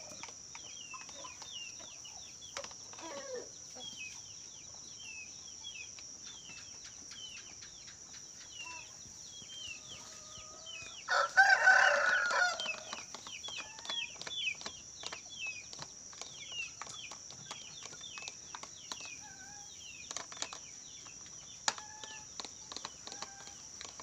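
A rooster crows once about eleven seconds in, the loudest sound. Under it run short, quick falling chirps, one or two a second, and a steady high-pitched whine.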